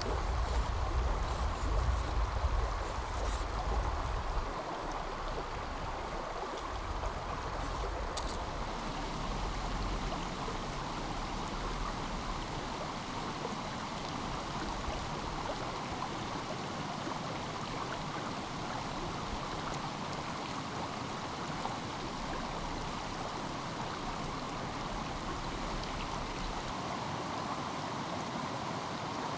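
Steady rushing of a flowing stream. A low rumble and a few faint clicks are heard in the first few seconds.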